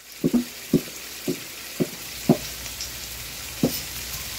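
A cleaver chops a red bell pepper on a wooden cutting board: six short knocks, about every half second, with a longer pause before the last. Under it runs a steady sizzle from a pan of diced onion and bell pepper frying.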